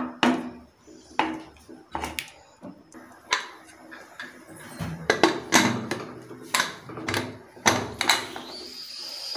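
A ladle stirring and knocking against a metal pressure cooker, then the cooker's metal lid being set on and fitted, giving a series of sharp clanks and knocks.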